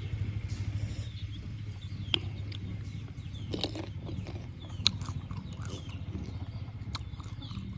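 A person eating pani puri: chewing, with a few sharp crunches of the crisp puri shells, over a steady low hum.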